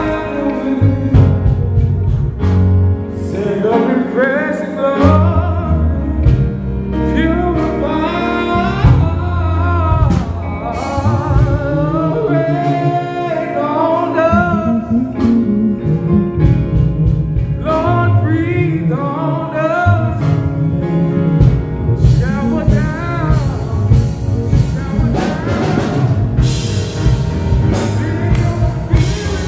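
Live gospel song: a male lead singer on a microphone over a band with electric guitar, bass and keyboard.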